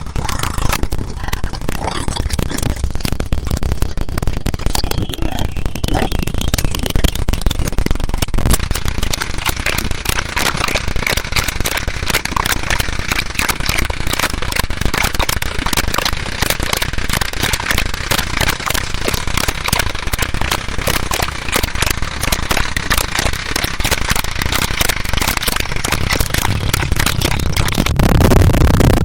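Loud, dense crackling noise of rapid pops and clicks, running without a break; near the end it turns heavier and deeper.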